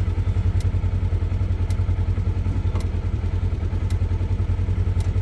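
Small farm vehicle engine running steadily with a fast low pulse. Sharp ticks come through about once a second.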